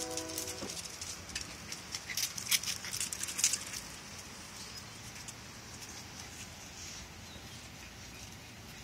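Pembroke Welsh Corgi puppies' paws and claws pattering and clicking on a concrete patio as they scamper and play, in a quick irregular scatter of light clicks over the first three and a half seconds, then only a low steady hiss.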